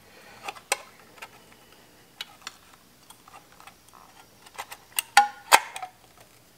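Irregular small clicks and taps of a motorcycle speedometer's metal case and parts as its two halves are handled and pressed together by hand, with two louder knocks about five seconds in.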